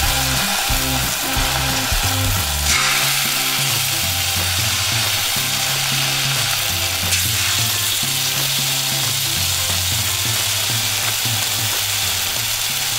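Marinated filet mignon steaks sizzling in hot olive oil in a stainless steel skillet as they are laid into the pan one by one. The sizzle flares louder about three seconds in. Background music with a bass line plays underneath.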